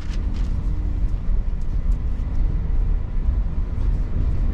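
Interior running noise of an SJ X2000 high-speed train in motion: a steady low rumble with a few faint light clicks and rattles.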